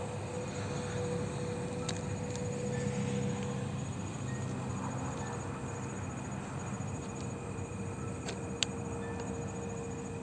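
Crickets and other night insects chirping steadily, with a steady high hum and a low rumble underneath; one sharp click near the end.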